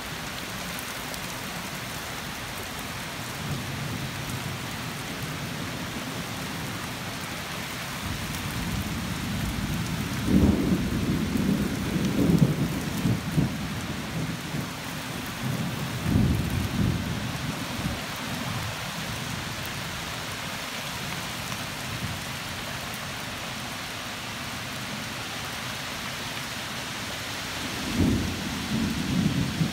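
Steady rain falling, with thunder rumbling several times. The longest and loudest roll comes about ten seconds in and lasts several seconds, another follows a few seconds later, and a sudden clap starts near the end.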